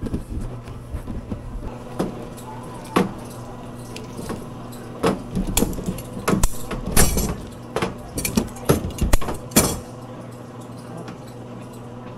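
Irregular clicks and knocks of hand work on a candy table: scissors snipping a soft candy rope and metal tools set down on the table, busiest in the middle of the stretch, over a steady low hum.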